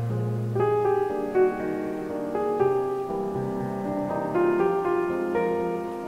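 Background piano music: a gentle melody of held notes over a low sustained bass.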